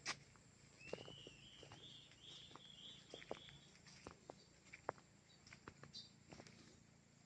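Faint countryside ambience: a bird gives a short wavering, warbling call from about one second in to past three seconds, over scattered light clicks and taps.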